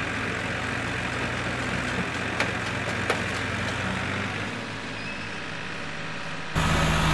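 Two farm tractors' diesel engines running under load as they pull a motorcycle apart, with two sharp cracks about two and a half seconds in and again half a second later as the bike gives way. Near the end the engine sound turns suddenly louder and closer.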